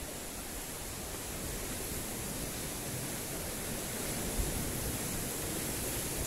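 Steady rushing noise of sea surf breaking on a rocky shore, with a single low thump about four seconds in.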